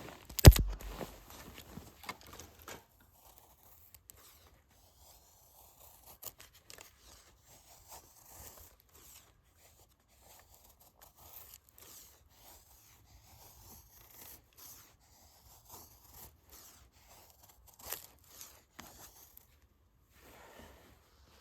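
A series of short, irregular scraping strokes, typical of a knife shaving thin curls from a stick of wood, with one sharp knock about half a second in.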